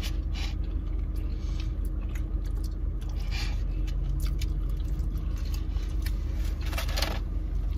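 Chewing and eating noises close to the microphone, with scattered small clicks and rustles, over a steady low hum inside a car.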